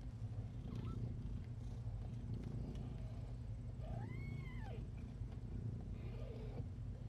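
Newborn kittens mewing: one clear cry about four seconds in that rises and then falls in pitch, and a fainter squeak near the end, over a steady low rumble.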